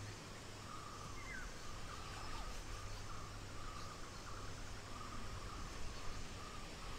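Outdoor nature ambience: an insect trills in repeated bursts, with a short falling bird chirp about a second in.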